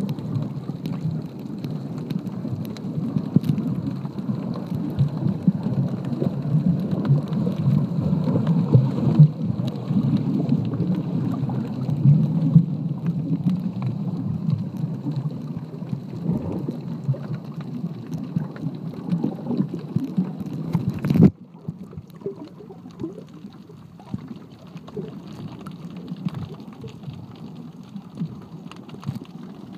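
Underwater ambience picked up by a submerged camera: a muffled, crackling rumble of moving water, with a faint steady high tone underneath. About two-thirds of the way through, a sharp click, and the rumble drops to a quieter level.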